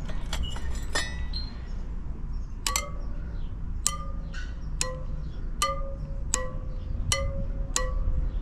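Motorcycle front-wheel spokes struck one after another with a metal tool, each giving a short metallic ping at slightly differing pitch: seven strikes, starting about two and a half seconds in, after a few lighter clicks. The new spoke's ring is being compared with the old spokes' to judge whether it is tightened to the same tension.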